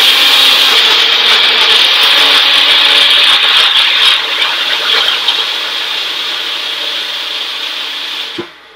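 Personal bullet-style blender running with its cup pressed down onto the motor base, whirring and grinding through celery, kale and juice. It is loud at first, runs a little quieter from about four seconds in, and cuts off abruptly shortly before the end.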